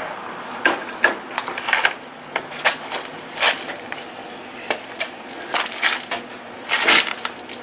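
Welder striking short, irregular tack-weld bursts on steel: a string of sharp crackles and clicks, a few lasting a fraction of a second.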